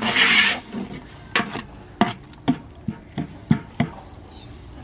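Steel ladle stirring a wet onion-and-tomato masala in a large aluminium pot: a loud scrape at first, then the ladle knocks against the pot about seven times.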